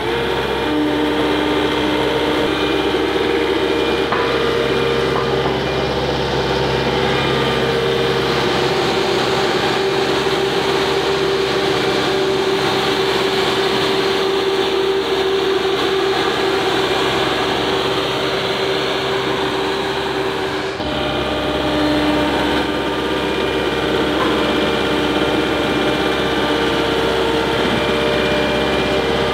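Road roller's engine running steadily under way, with a steady whine over the engine hum; the engine note shifts abruptly about 21 seconds in.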